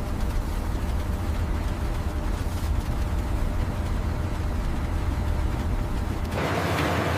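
Steady low rumble of heavy industrial machinery running. Just over six seconds in, the deep rumble drops away and a brighter, rushing noise takes over.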